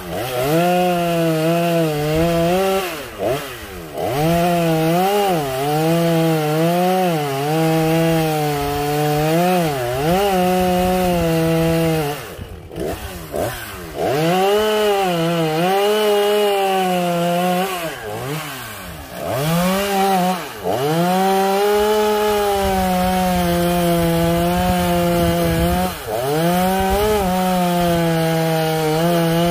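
Two-stroke chainsaw cutting through a tree trunk, its engine pitch sagging and picking back up over and over as the chain bites into the wood. Several times the revs fall away sharply and then climb again.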